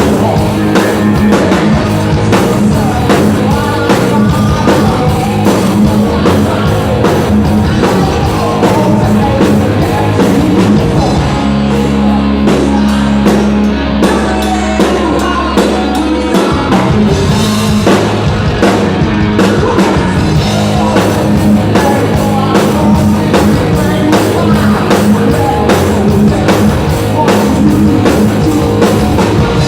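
Live hard rock band playing loud, with drum kit, distorted electric guitars and a singing voice. About twelve seconds in the drumming thins out under a held low chord for around four seconds, then the full beat comes back.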